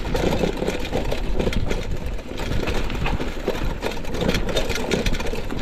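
Trek Marlin 6 mountain bike ridden fast downhill on a leaf-covered dirt trail: a steady clattering rattle of the chain and frame over bumps, with the tyres crunching through dry leaves and a low rumble of wind on the helmet camera.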